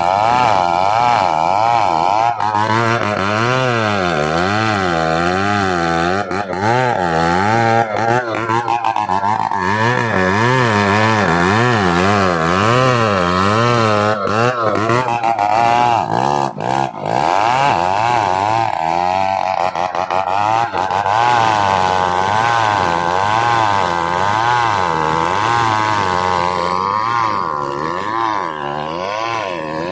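Two-stroke chainsaw running under load as it cuts into a merbau (ironwood) trunk, its engine pitch rising and falling in a steady wave.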